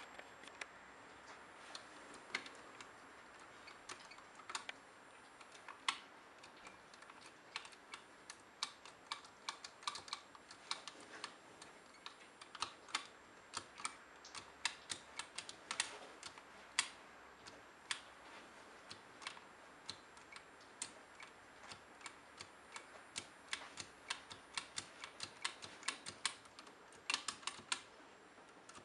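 Keys of a Canon Canola L121 nixie-tube desktop calculator being pressed: a long irregular series of short clicks, some single and some in quick runs, thickest near the end.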